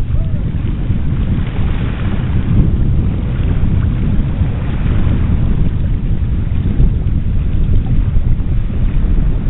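Gusty wind buffeting the microphone, a loud low rumble that rises and falls without a break, with a lighter hiss of small waves washing over the stony shallows.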